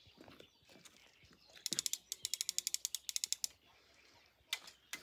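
Fishing reel clicking rapidly through its ratchet for about two seconds, around ten clicks a second, followed by a couple of single clicks near the end.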